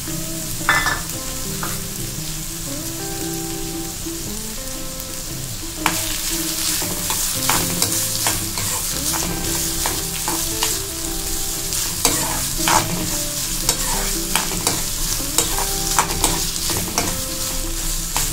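Chopped ginger sizzling in sesame oil in a metal kadai while a steel spoon stirs it, scraping and clicking against the pan. There is a sharp clink about a second in, and from about six seconds in the sizzle grows louder and the spoon clicks come often. This is the sautéing stage that softens the ginger.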